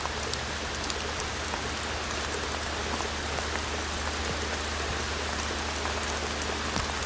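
Steady rain falling during a rainstorm, with many close drops ticking through the hiss and a steady low hum underneath.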